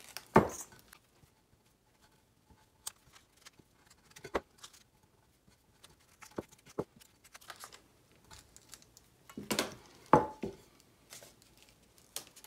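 Scattered handling noises of an adhesive vinyl decal being applied to a tumbler: transfer backing crinkling and peeling, and a squeegee rubbing the vinyl down. Sharper knocks come about half a second in and again around ten seconds in.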